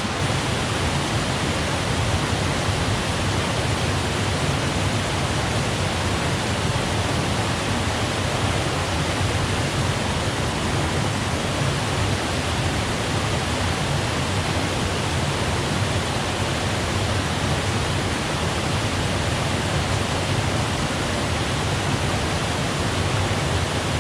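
Small forest stream pouring down a little waterfall: a steady, unbroken rush of water.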